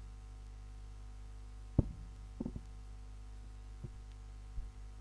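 Steady electrical mains hum with a few dull thumps or knocks: the loudest about two seconds in, then a quick pair, and two softer ones near the end.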